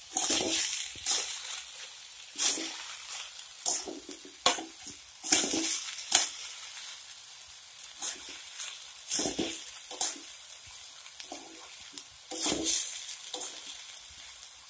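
Metal spatula stirring and tossing vegetable fried rice in a metal kadai: irregular scrapes against the pan, about one a second, over a light sizzle.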